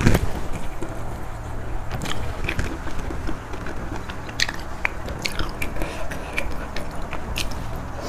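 Close-miked chewing and biting of seafood salad pieces such as squid and shrimp, with frequent short wet mouth clicks and smacks. There is a louder bite or smack right at the start.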